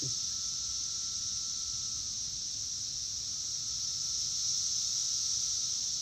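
Chorus of periodical cicadas: a steady, high-pitched drone with no let-up.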